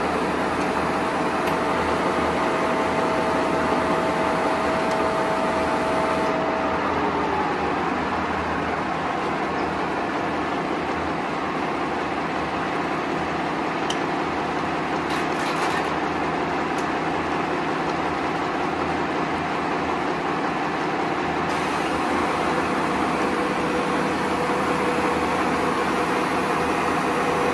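Bullard Cutmaster vertical turret lathe running under power: a steady machine hum with a whining gear tone that drops in pitch and fades about seven seconds in as the rotating table comes to a stop, while the drive keeps running. A new steady tone comes in near the end.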